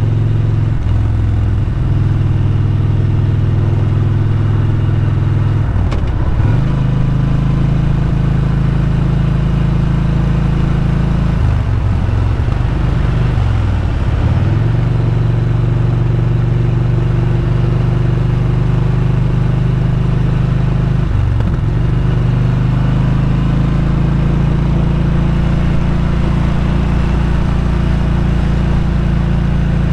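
Motorcycle engine running steadily under way on the road, heard from the rider's seat, its note dipping and picking up again a few times with changes of throttle.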